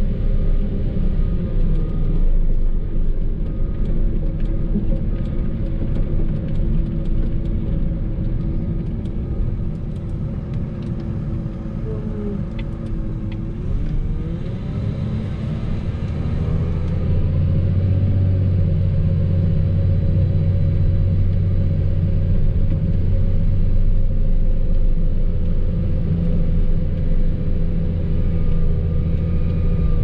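Engine of a snow-plowing vehicle running steadily under load. Its pitch sags a little, then climbs back about halfway through, and it runs louder and deeper in the second half.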